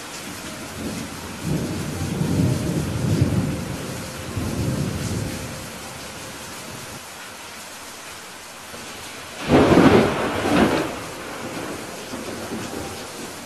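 Steady rain with thunder: a low rumble swells about a second and a half in and rolls on in two waves for several seconds, then a louder, sharper thunderclap breaks about two-thirds of the way through and rumbles off.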